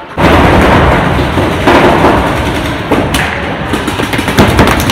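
Paintball markers firing rapid strings of shots, with paintballs thudding against the inflatable bunkers.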